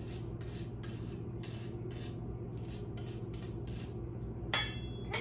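Microplane zester rasping on small oranges, even strokes about two or three a second, ending in a sharp metallic knock near the end.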